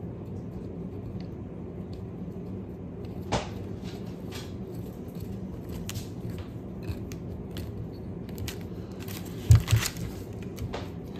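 Small metal clicks and scrapes as a tractor carburetor body is handled and its needle valves are threaded in by hand. A few louder knocks near the end, as the carburetor body bumps the table.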